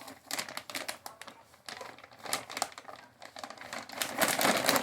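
Plastic bag crinkling and rustling in irregular crackles as raw chicken is handled in it, busiest near the end.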